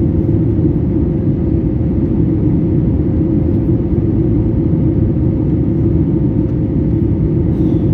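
Steady cabin roar of a Boeing 737 MAX 8 in flight, heard from a seat over the wing: the noise of its CFM LEAP-1B engines and the rushing air, with a faint steady hum on top.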